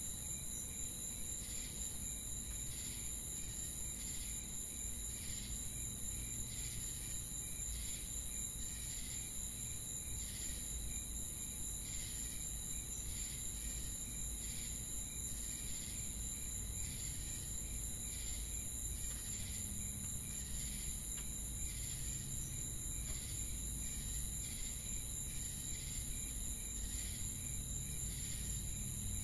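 Ambient insect chorus: crickets chirping in a steady, evenly repeating rhythm over a continuous high-pitched trill.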